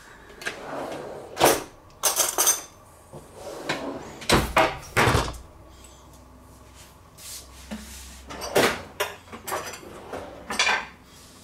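Kitchen clatter from cupboards, drawers and utensils being handled: a series of separate knocks and clinks, the heaviest a dull thud about four to five seconds in.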